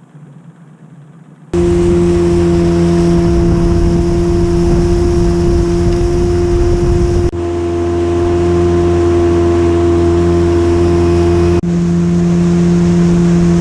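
Boat's outboard motor running at a steady speed under way, a steady drone over wind and water noise. It starts suddenly about a second and a half in and drops out briefly twice.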